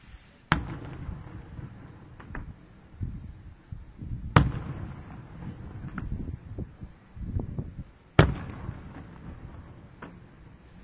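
Aerial firework shells bursting: three loud bangs about four seconds apart, each trailing a low rumbling echo, with smaller pops and crackles in between.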